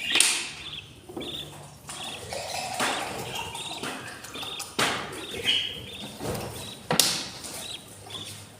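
Budgies chirping in short repeated calls, broken by a few loud sudden scuffs or knocks: one at the start, one about five seconds in and one about seven seconds in.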